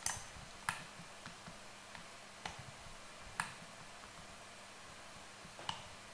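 Computer mouse and keyboard clicking: a handful of sharp, irregularly spaced clicks over a faint steady hum, as a desktop computer is worked.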